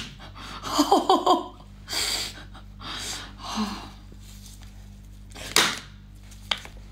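A woman's short pained whimpers about a second in, just after cracking a brown crab's shell against her forehead, then breathy exhalations and the noise of the cracked shell being pulled apart, with a louder breathy burst near the end.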